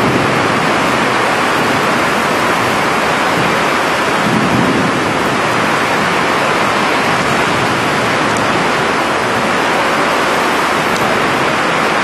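Heavy thunderstorm rain pouring down in a steady, loud hiss.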